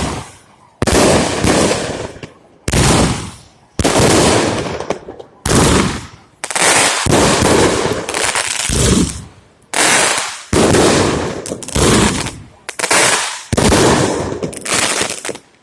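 Fireworks going off in a rapid series: about a dozen loud bangs, roughly one a second, each fading out in a rumble before the next.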